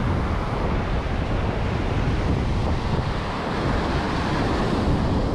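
Ocean surf breaking and washing up a sand beach, a steady rush of waves, with wind buffeting the microphone.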